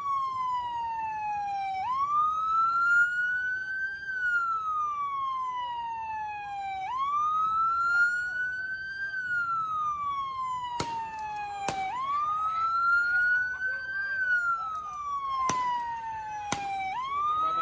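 Police car siren on a slow wail, its pitch sweeping up quickly and then gliding down slowly, about once every five seconds.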